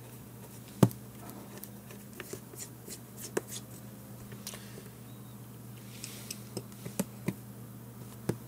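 Scattered light clicks and taps from hands handling a small plastic Garmin Nuvi GPS unit and its tiny back-panel screws on a tabletop, the sharpest click about a second in. A low steady hum runs underneath.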